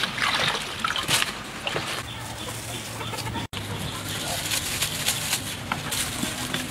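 A heap of dry, whole grasshoppers rustling and crackling as they are handled in a metal bowl and seasoning powder is sprinkled over them, in short irregular clicks.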